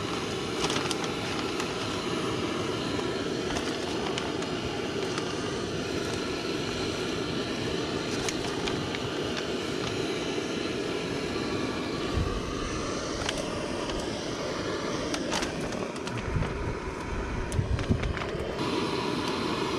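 Portable gas camp stove burner running steadily, boiling water for cooking. A few light clicks and low knocks of pots and handling come through over it.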